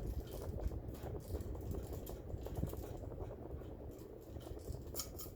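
Vintage Sears Roebuck ceiling fan running with a steady low hum and a rapid, irregular rattle from its loose switch housing piece, with a sharper click near the end.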